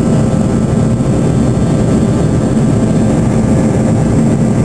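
Boeing 737-200's Pratt & Whitney JT8D turbofan engines heard from inside the cabin during the climb after takeoff: a steady, loud low roar.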